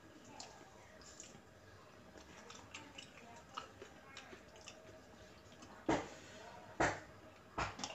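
Eating sounds: a spoon and fork ticking and scraping in a plastic bowl of sweet-soy fried noodles, with mouth sounds of chewing. Three louder sharp smacks or clinks come close together in the last two seconds.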